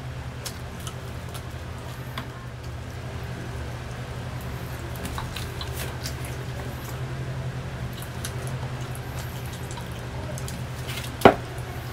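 Close-up chewing of fried chicken: small wet mouth clicks and smacks over a steady low hum, with one loud sharp snap near the end.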